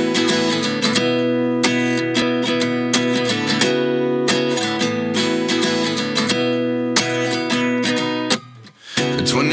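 Background music: strummed acoustic guitar chords with a regular rhythm, cutting out briefly near the end before the song comes back in.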